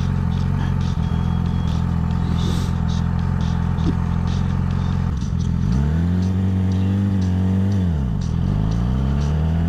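Yamaha R6 sportbike's inline-four engine idling steadily at a stop, then revving up as the bike pulls away, its pitch dropping briefly about eight seconds in at a gear change before climbing again.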